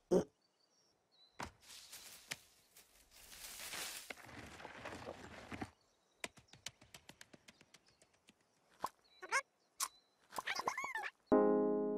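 Cartoon sound effects: a leafy bush rustling, then a quick run of light ticks and a few short high squeaks. Piano music comes in near the end.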